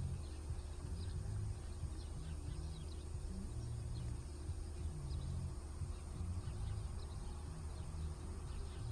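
Outdoor ambience: a steady low rumble with faint, scattered high bird chirps over it, and a thin steady high-pitched tone.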